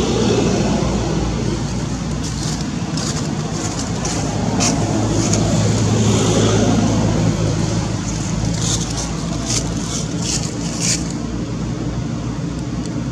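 Steady low rumble of motor traffic, swelling for a few seconds in the middle, with a scatter of short, high clicks or chirps over it.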